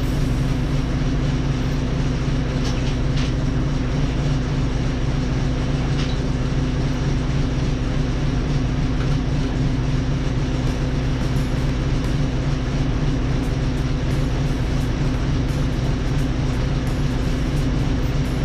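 An engine running steadily at one constant speed, a continuous low mechanical drone that does not change.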